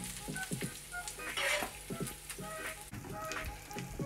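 Hot butter, lime juice and pesto sauce sizzling and crackling in a non-stick frying pan, with scattered pops and a louder hiss of sizzling about one and a half seconds in.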